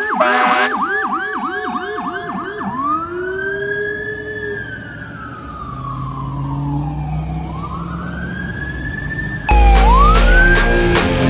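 Fire engine's electronic siren on a fast yelp with the last of an air-horn blast at the start, while a steady siren tone slowly winds down; about a third of the way in the siren switches to a slow wail that rises and falls twice. Music comes in loudly near the end.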